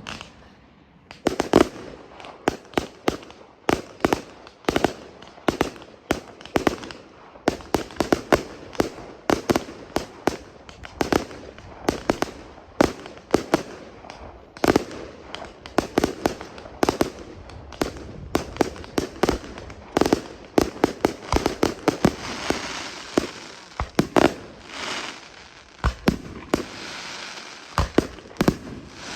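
Fireworks display firing: a dense, irregular run of sharp bangs and reports, several a second, with a crackling hiss thickening in the second half.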